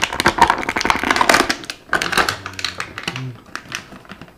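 Clear plastic blister packaging crinkling and clicking as it is handled and an action figure is worked out of it, busiest in the first two seconds and sparser after.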